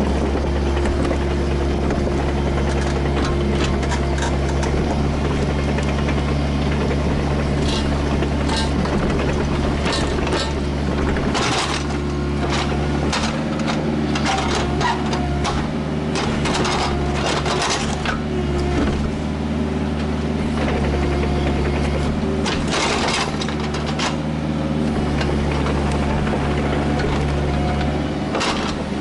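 Kubota KX121-3 mini excavator's diesel engine running steadily under work, with scattered knocks and scrapes of stone and steel, most of them in the middle stretch.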